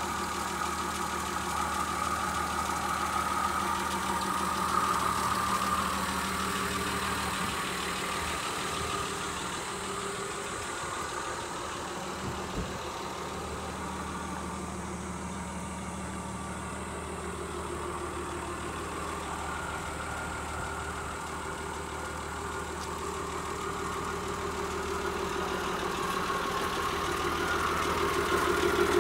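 Nissan Civilian minibus's TD42 4.2-litre straight-six diesel idling steadily, growing louder near the end.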